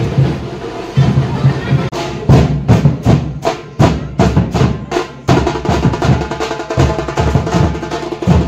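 Dhol-tasha troupe playing: big dhol barrel drums beating with the sharp rapid strokes of the tasha. The rhythm turns fast and dense about two seconds in.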